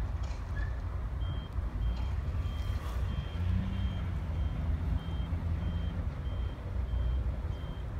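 Diesel shunting locomotive's engine rumbling low while a reversing alarm beeps at one steady high pitch, about twice a second, starting about a second in.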